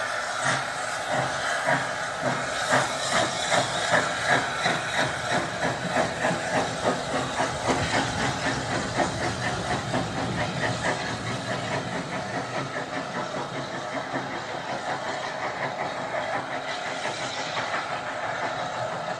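Steam locomotive pulling away, its exhaust chuffing in a regular beat over a steady steam hiss. The beats quicken as it gathers speed, then grow fainter as it draws away.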